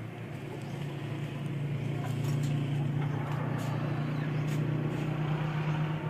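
A low, steady engine hum that grows louder over the first two seconds and then holds steady, with a few faint clicks over it.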